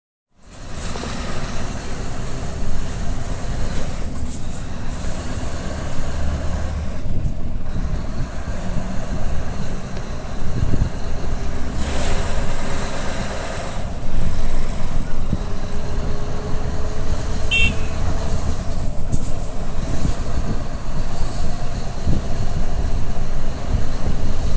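Scania R620 truck's V8 diesel engine running steadily while driving, a continuous low rumble mixed with wind and road noise.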